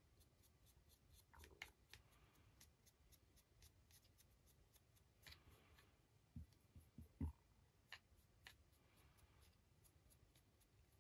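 Near silence, with faint scattered clicks and taps from a fine paintbrush working over a hand-held 3D-printed resin figure. A few soft knocks a little past halfway are the loudest sounds.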